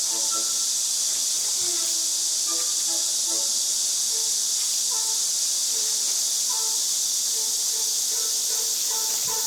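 Soft background music of short, spaced melodic notes over a loud, steady high-pitched hiss.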